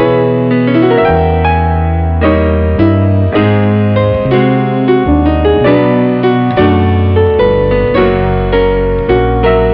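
Background piano music: keyboard notes struck at an even pace over a changing bass line.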